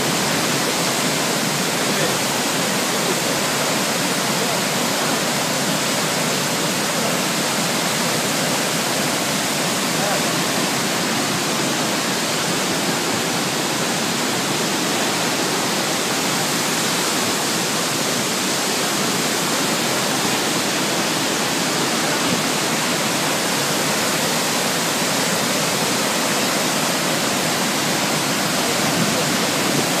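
Ouzoud Falls, a tall waterfall, pouring down into its gorge: a loud, steady rushing of falling water that doesn't let up.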